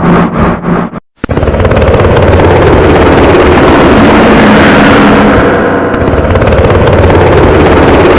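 Helicopter running loud and steady, rotor chop over engine whine. It stutters and cuts out for a split second about a second in, then picks up again.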